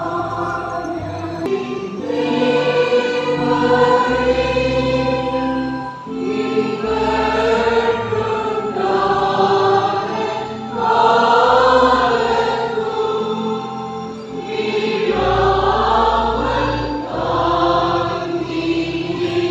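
Choir and congregation singing a Tamil Christian hymn over instrumental accompaniment with sustained bass notes that change every couple of seconds.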